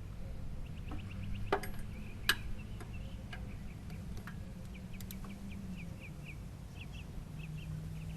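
A few sharp metallic clicks and knocks of a socket wrench being fitted to the coolant sensor, over a low steady hum, with a bird chirping in quick runs of short high notes.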